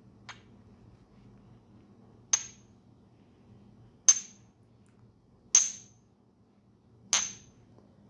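Five sharp glassy taps a second or two apart, the first faint, each with a brief ring: a crystal wand tapped against a comb held in the hair.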